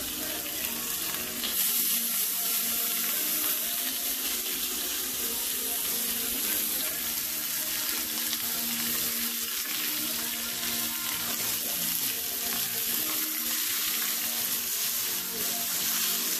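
Sirloin steaks searing in hot avocado oil in a cast-iron skillet: a steady sizzle that grows fuller about a second and a half in as more steaks are laid into the pan.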